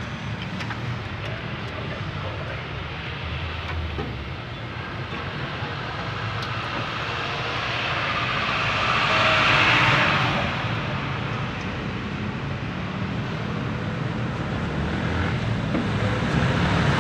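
Steady motor-vehicle engine hum of road traffic, growing louder for a few seconds around nine to ten seconds in, then easing back.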